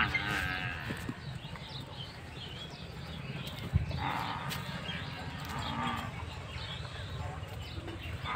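Goats bleating several times, with a short thump just before four seconds in over a low rumble.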